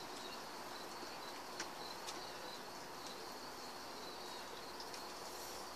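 Faint outdoor ambience: a steady, thin, high insect drone, typical of crickets, over a soft even hiss, with a few light ticks.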